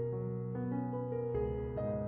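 Soft background piano music, a slow melody of held notes.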